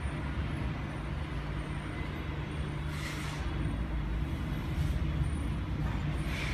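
Steady low engine-like rumble with two short hissing swooshes, one about three seconds in and one near the end.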